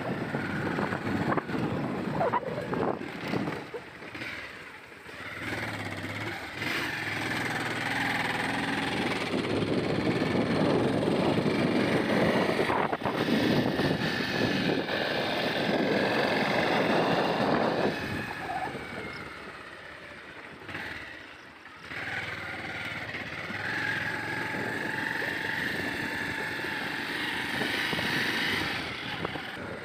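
Motorcycle engine running as the bike rides over a rough dirt road, with wind noise on the microphone; it grows quieter for a few seconds past the middle.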